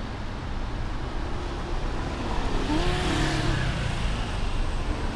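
Street traffic: a steady low rumble, with a car passing that swells and fades about three seconds in.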